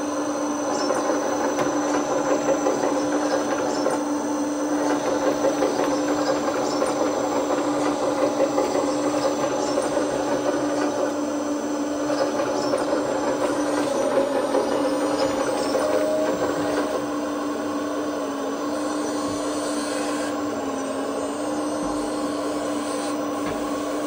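Magom 330D RC hydraulic excavator running: the Servonaut SMB sound module's simulated diesel engine plays through the model's speaker over the steady hum of its hydraulic pump as the boom and upper structure work. The hum's pitch steps down slightly a few times after the middle.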